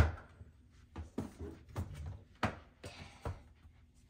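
Objects being moved around on a low closet shelf: a series of knocks and thuds, the loudest right at the start, with a brief rustle about three seconds in.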